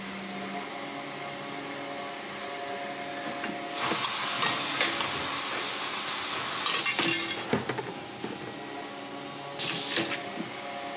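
Automatic screw-making machine running steadily, with a thin high whine and a low hum. Loud hissing comes in twice, for about three seconds starting some four seconds in and again briefly near the end, with a few sharp clicks.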